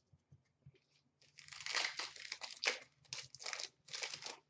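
Plastic wrapper of an Upper Deck Trilogy hockey card pack being torn open and crinkled by hand: a run of crackling, starting about a second and a half in and lasting until near the end.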